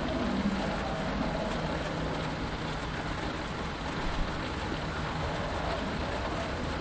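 Steady rain falling on a cockpit canopy, heard from inside as a continuous, even hiss.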